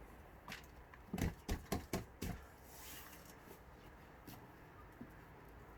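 A quick run of five or six sharp knocks and clicks, about a second in, as the newly assembled ARB camp stretcher's frame is handled, then a few faint taps.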